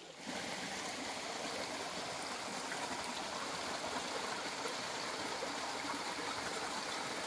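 Small rocky forest stream running steadily, its water spilling down little cascades over boulders into a shallow pool. The sound cuts in abruptly just after the start.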